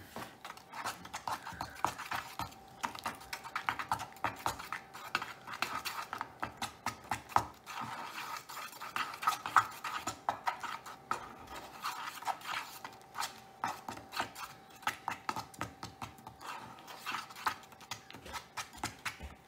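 Metal mixing tool stirring frosting in a metal muffin tin, with quick irregular clicks and scrapes as it knocks against the cup: red and blue food colouring being mixed into vanilla frosting to make purple.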